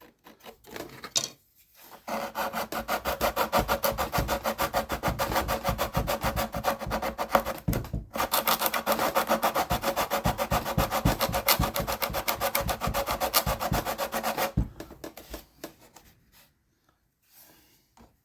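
Rapid rasping strokes on wood, in two spells of about six seconds each with a short break about eight seconds in.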